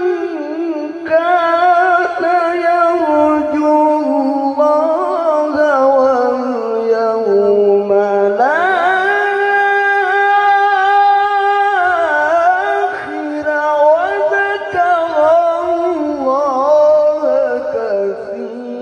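A man reciting the Qur'an in the melodic tilawah style, one voice amplified through a handheld microphone, drawing out long ornamented notes with quick wavering turns. About eight seconds in the voice climbs to a high note, holds it for about three seconds, then winds back down. He is forcing a hoarse voice that he says is not well.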